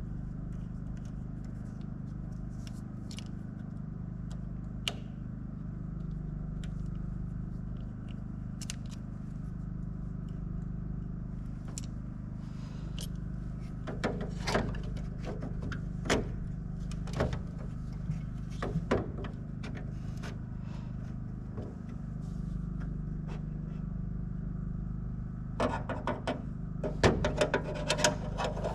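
Scattered clicks, taps and scrapes of small objects being handled, bunched about halfway through and again near the end, over a steady low hum.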